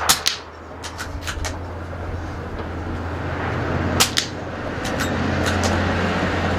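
Two .22 LR rifle shots about four seconds apart, each followed a fraction of a second later by a second sharp crack, typical of the bullet striking a steel target, with a few lighter clicks between them. A steady noise, typical of wind on the microphone, grows louder throughout.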